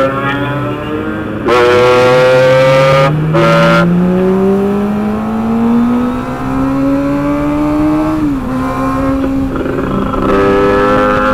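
Motorcycle engine under way, its pitch rising steadily for about six seconds as it accelerates, dipping briefly about eight seconds in, then holding steady. A loud rush of noise comes in about one and a half seconds in.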